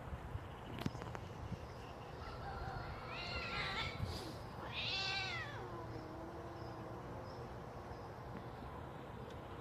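Two cats fighting, one crying out in two wavering yowls, the second and louder about five seconds in, followed by a lower, fainter drawn-out note.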